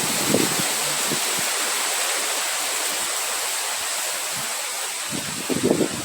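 Steady rushing wind, an even hiss, with low gusts buffeting the microphone briefly just after the start and again from about five seconds in.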